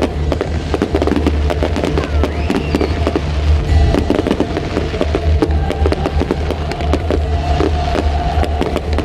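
Fireworks going off in quick succession, many bangs and crackles close together, over music with a deep steady bass.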